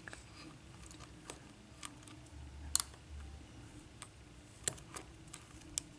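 Faint, irregular clicks of a hook pick and tension wrench working the pin stack of an Assa six-pin brass lock cylinder during single-pin picking. There are about half a dozen scattered ticks, and the sharpest comes near three seconds in.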